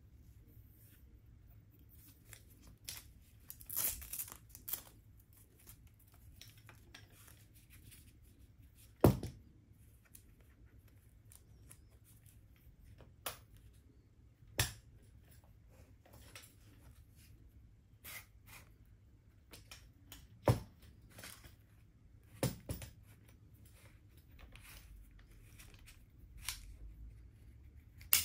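Handling noise from collapsible aluminium trekking poles: sharp clicks and knocks as the folding sections are snapped together and the locks worked, the loudest about nine seconds in, with a short burst of ripping, crinkly rustling about four seconds in.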